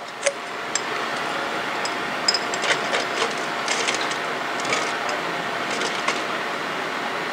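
Metal spatula clicking and scraping inside a jar of PPC beads, prying apart beads that have stuck together, with a steady hiss underneath.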